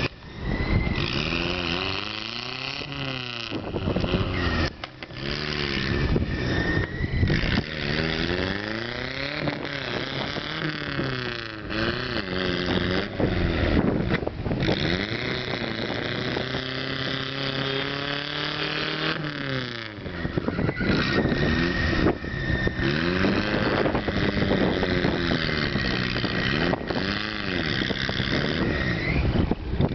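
Mud-bogging pickup truck's engine revving hard over and over, the pitch climbing and dropping with each push, held high for several seconds in the middle. The truck is stuck axle-deep in a flooded mud pit with its tires spinning in water and mud.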